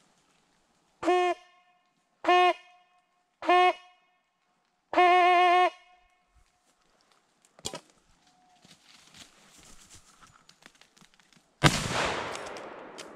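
A brass hunting horn sounded on one steady note: three short blasts, then one longer blast. About eleven seconds in, a single loud gunshot with a long echo dying away through the woods.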